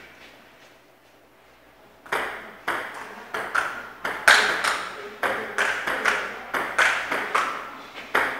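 Table tennis rally: a celluloid ping-pong ball clicking off paddles and the table in a quick even rhythm, about three hits a second, starting about two seconds in.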